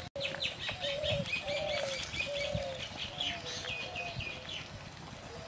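Birds calling: a low call repeated about twice a second, over quick runs of high chirps that stop near the end. A few faint knocks sound underneath.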